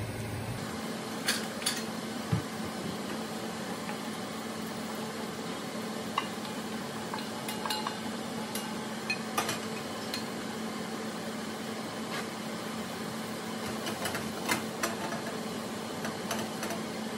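Carbon steel wok and wooden spoon clinking and knocking as oil and charred aromatics are tipped out into a bowl and the wok is set back down on the gas range's cast-iron grate: a dozen or so short, sharp knocks scattered over a steady low hiss.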